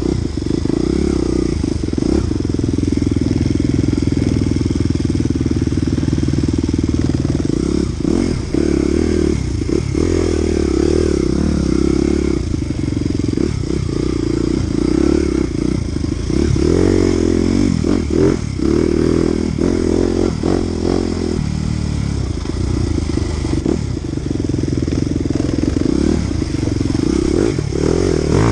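Off-road dirt bike engine close to the microphone, its note rising and falling as the throttle is opened and closed again and again on a rough forest trail.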